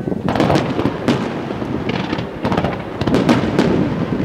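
Fireworks display: aerial shells bursting and fans of comets fired from the ground, a dense, uneven run of bangs and crackles in several overlapping clusters.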